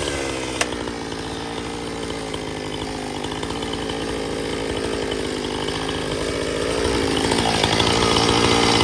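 Chainsaw running at full throttle, cutting steadily through a log under load, with the level building gradually toward the end of the cut.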